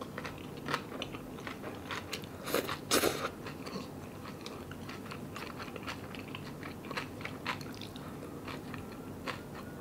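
Close-up eating sounds of instant cup noodles: slurping and chewing, with many small wet clicks of the mouth, loudest about three seconds in.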